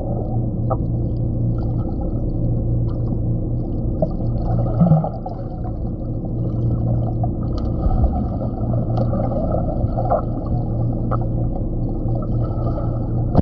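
Muffled underwater sound picked up by a GoPro that has been dropped into a pool: a steady dull rush with a low hum, and a few faint small clicks.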